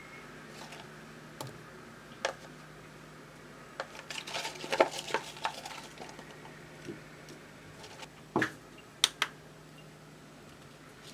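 Scattered clicks and light clatter of small hard objects being handled, with a busy run of knocks around the middle and two sharp clicks near the end, over a faint steady hum.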